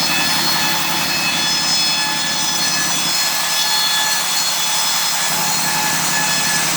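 Circular saw machine running steadily with a constant whine. Its low rumble drops away for about two seconds in the middle.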